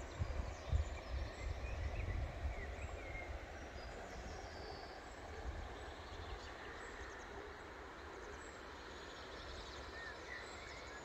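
Outdoor riverside ambience: wind buffeting the microphone in gusts for the first few seconds, over a steady noise bed, with a few short bird chirps.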